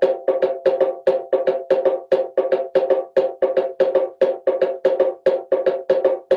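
Bongo drums played in a steady, fast rhythm of about four sharp, ringing strikes a second.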